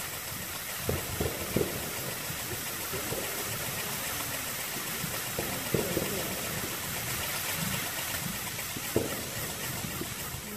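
A homemade saxon firework, a spinning wheel driven by two spark-throwing drivers, burning with a steady hiss that fades slightly near the end as the drivers burn down. A few short thumps sound through it.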